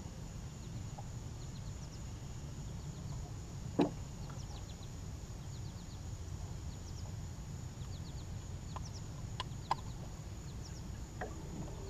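Quiet outdoor background: a steady low rumble with faint, short high bird chirps, a single sharp knock about four seconds in and a few fainter clicks later.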